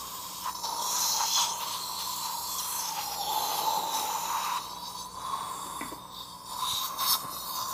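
Dental air-water syringe and suction tip rinsing and evacuating water from the mouth: a steady hiss with a steady whine underneath. The hiss dips briefly a couple of times in the second half.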